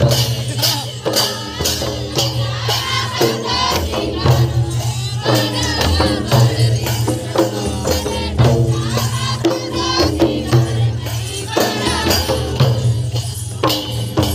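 Chhattisgarhi Karma folk dance music: a mandar drum beating a steady rhythm under group singing.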